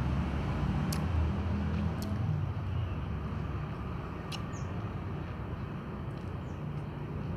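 Cats eating rice from plastic tubs, heard as a few faint clicks and small mouth sounds over a steady low rumble that is heaviest in the first couple of seconds.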